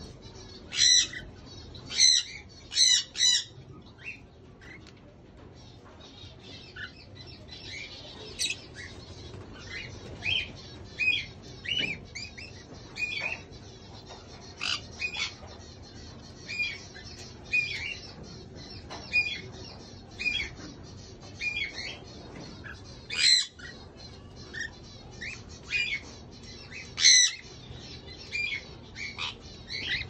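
Pet cockatiels and a conure in an aviary calling: short chirps about once a second, broken by loud harsh squawks three times in quick succession about a second in and twice more near the end.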